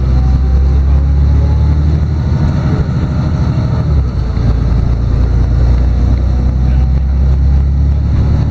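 Inside a moving LiAZ-6213.22 articulated city bus: steady low drone of the diesel engine with road noise, dipping briefly about four seconds in.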